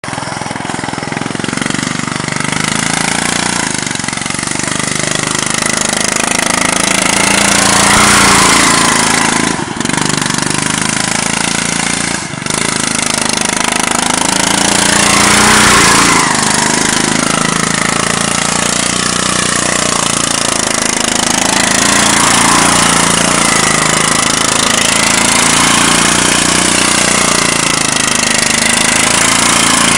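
Riding lawn mower engine running hard, its pitch rising and falling as it speeds up and eases off. It is loudest about 8 and 16 seconds in, with two brief drops in sound near 10 and 12 seconds.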